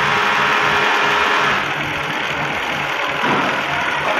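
Multi-needle industrial smocking-stitch sewing machine running steadily while stitching fabric, a constant mechanical hum that turns a little quieter about a second and a half in.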